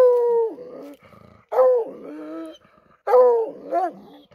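Black-and-tan coonhound reared up against a tree trunk, barking treed: three long bawls about a second and a half apart, each dropping in pitch, with a short bark after the last. The treed bark signals a raccoon up the tree.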